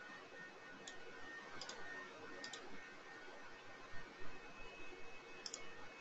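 Computer mouse clicking about four times, mostly as quick double clicks, over a faint steady background hum.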